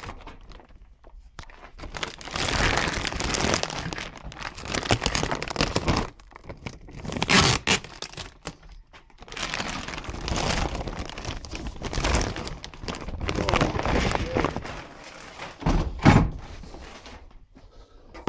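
Plastic packaging bags crinkling and rustling in repeated bursts as items are handled, with a few knocks and thuds, the loudest about sixteen seconds in.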